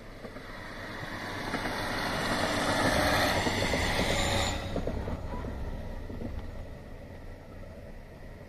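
A KiHa 40 diesel railcar passes, its engine and wheels on the rails growing louder to a peak about three to four seconds in, then dropping away sharply and fading into the distance.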